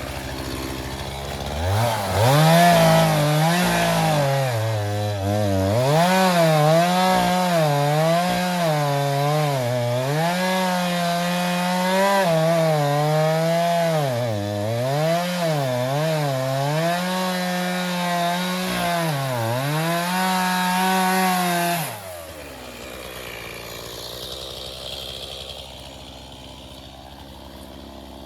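Two-stroke chainsaw revved to full throttle and cutting into a tree trunk, its pitch dipping again and again as the chain bites into the wood, for about twenty seconds. About two seconds in it rises from idle, and near the end it drops back to idle.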